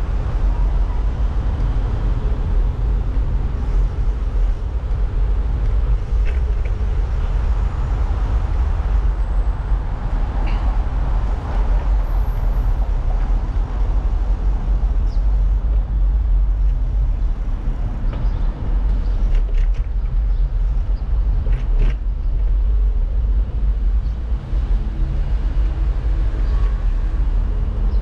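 Steady low rumble of a bicycle rolling over brick paving, picked up by a camera mounted on the bike, with a few brief clicks and rattles along the way.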